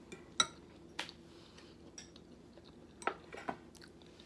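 Cutlery clinking against a bowl about five times in light, separate clinks, the loudest just under half a second in.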